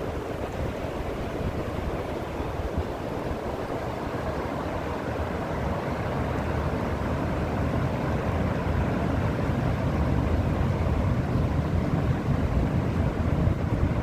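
River water rushing over a low weir and through the rapids below it: a steady rushing noise that grows a little louder toward the end, with wind buffeting the microphone.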